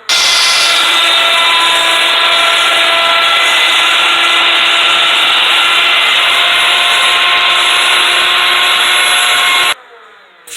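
Woodworking power machine cutting pine: a loud, steady motor whine over cutting noise. It starts and stops abruptly, almost ten seconds apart.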